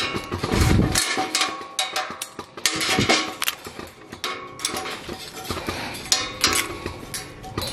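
Steel lineman's pliers and tie wire clinking and scraping against rebar as a wire tie is wrapped and twisted, a run of irregular metallic clicks with a dull thump just under a second in. Faint background music runs underneath.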